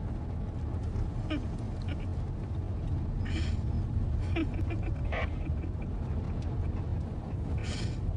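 Steady low rumble of a taxi driving, heard from inside the cab, with scattered short squeaky or sharp sounds over it.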